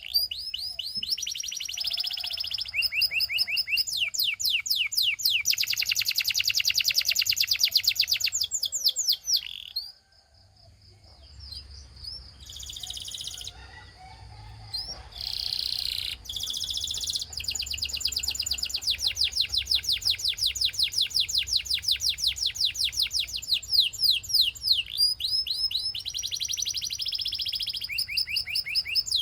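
Canary singing: long fast trills of repeated high, down-sweeping notes, broken by a short pause about ten seconds in and a few seconds of looser, softer phrases before the rapid trills resume.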